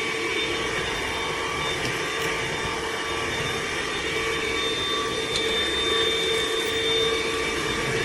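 Hoover ONEPWR Evolve Pet Elite cordless stick vacuum running steadily, a continuous whine with several steady tones over the rush of its suction.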